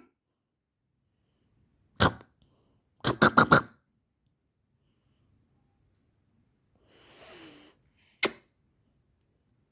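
Pet parrot making short, sharp sneeze-like clicks: one about two seconds in, a quick run of four a second later, a soft hiss, then a single click near the end.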